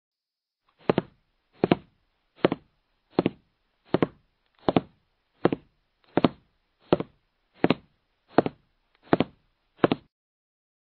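Thirteen short knocks in a steady beat, about one every three-quarters of a second, with dead silence between them.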